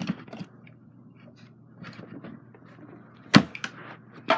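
Things being handled and knocked: small scattered knocks and rustles, with one sharp loud knock about three and a half seconds in and another near the end.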